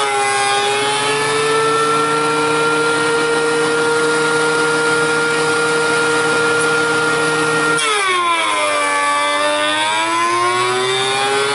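DeWalt benchtop thickness planer running with a loud, steady whine as rough wild black cherry boards are fed through it. About eight seconds in, the pitch drops suddenly and then climbs back over several seconds as the motor slows under the load of a cut and recovers.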